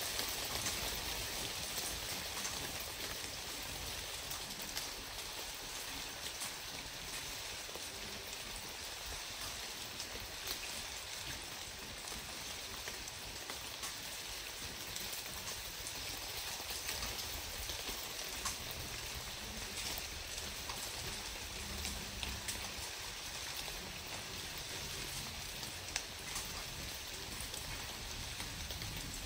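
Light rain falling: a steady hiss of rain with scattered ticks of single drops striking nearby surfaces.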